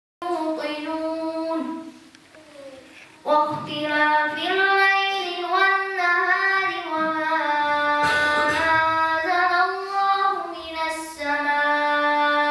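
A boy's voice reciting a surah of the Quran in melodic chant, holding long, gliding notes. He pauses briefly about two seconds in, then resumes the chant.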